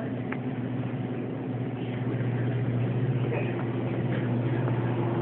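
A steady low hum with a few faint clicks and rustles over it.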